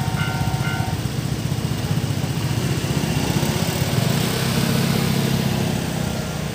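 A level-crossing's electronic warning alarm pulses about twice a second and stops about a second in. Under it a nearby engine runs steadily, rising in pitch around three seconds in as it picks up.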